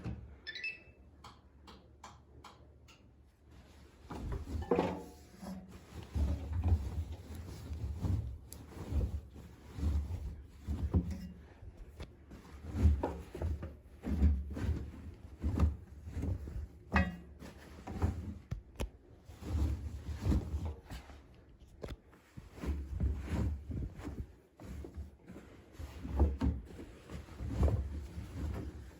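Siemens iQ500 front-loading washing machine starting a cycle: a brief high tone and a few clicks, then the drum turning as the laundry tumbles and drops with repeated low thuds about once a second, as the machine senses the size of the load.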